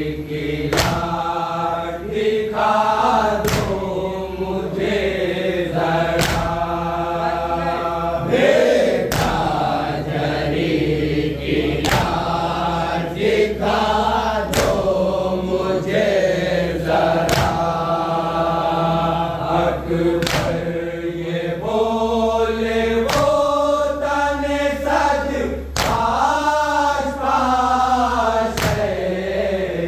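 A group of mourners singing a noha, an Urdu lament, in unison, with long held notes. Sharp beats fall about every second and a half, keeping time with the lament: the group's matam, chest-beating with the hands.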